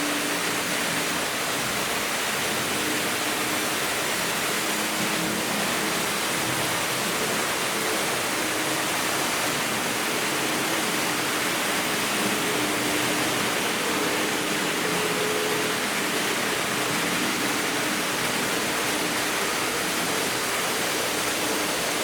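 Several Märklin H0 model trains running at once: a steady rushing hiss of wheels on the track, with the hum of the locomotives' electric motors coming and going as the trains pass.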